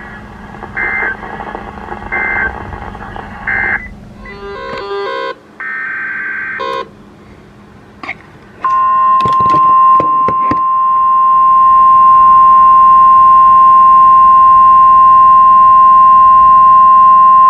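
Emergency alert signalling tones: three short data bursts, then a few seconds of digital code tones, followed by the loud, steady single-pitch NOAA Weather Radio 1050 Hz warning alarm tone for about nine seconds, with a few clicks as it starts. The bursts mark the end of one warning and the header of the next.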